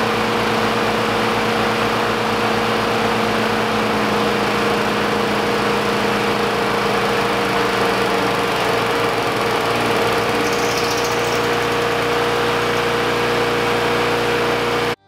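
Two small single-cylinder lawn mower engines running with no oil in their crankcases. One of them, pre-treated with Slick 50, is beginning to slow as it runs dry toward seizing, and one engine tone drops out about halfway through.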